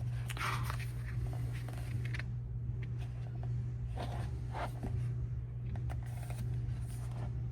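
Pages of a glossy album photobook being handled and turned: a few short papery swishes and slides over a steady low hum.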